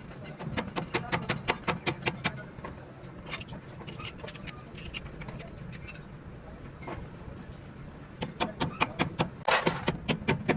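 Quick metallic tapping and clinking on truck differential parts, about five taps a second, in two runs with a pause between, over a steady low hum. A short rasping burst comes near the end.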